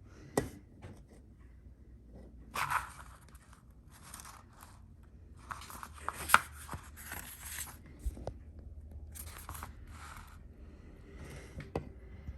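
Paper instruction manual being unfolded and handled: several short bursts of rustling and crinkling with a few sharp clicks, the loudest about six seconds in, over a faint low hum.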